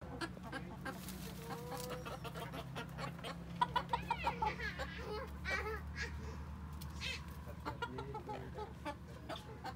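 Silkie chickens clucking, a run of short calls from several birds, busiest and loudest around the middle.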